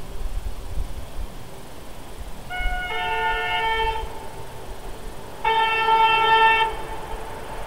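Locomotive horn sounding two blasts over the low rumble of a train. The first is a chord whose lower note comes in half a second after the upper one, lasting about a second and a half. The second, louder blast about five and a half seconds in lasts just over a second.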